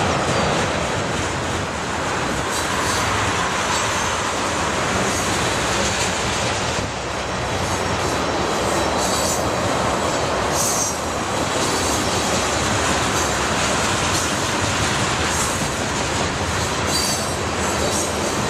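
Freight train cars rolling past steadily, wheels clicking over rail joints, with short high-pitched wheel squeals now and then.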